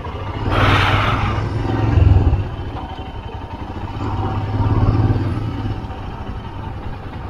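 Motorcycle engine pulling hard in first gear on a rough hill road, getting louder twice as the throttle opens. A brief burst of hiss comes about half a second in.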